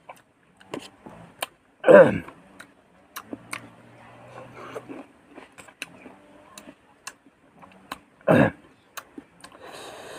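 Someone eating fruit: wet mouth clicks and chewing. Two short vocal exclamations fall in pitch, one about two seconds in and one near the end.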